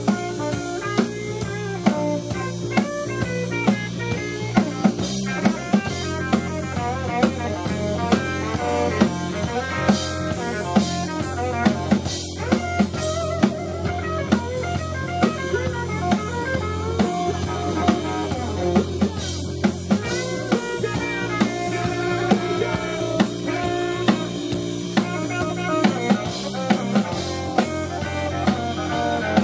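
Live band playing, with a steady drum-kit beat of snare and bass drum under electric guitar.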